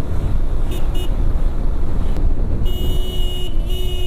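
Heavy wind rumble on a motorcycle rider's helmet mic while riding. A vehicle horn gives two short beeps about a second in, then a longer honk over the last second and a half.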